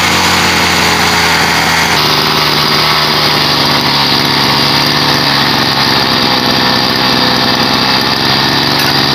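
Hyundai 520 brush cutter's 51.7 cc two-stroke engine running steadily at idle after a spark-plug change, while it is checked for misfiring; its note shifts slightly about two seconds in.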